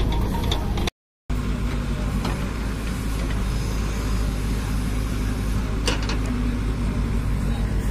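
Diesel engines of JCB 3DX backhoe loaders running steadily with a low hum as they dig and load, cutting out briefly about a second in. A couple of sharp clicks near six seconds in.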